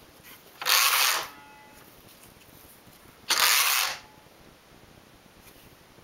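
Carriage of a Neva-2 hand knitting machine slid twice across the needle bed, knitting two short rows across the few needles left in work while the ear point is decreased. Each pass is a brief, loud metallic rasp, the second about two and a half seconds after the first.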